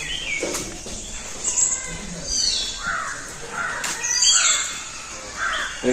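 Birds calling: repeated high chirps that slide down in pitch, with a few lower calls that rise.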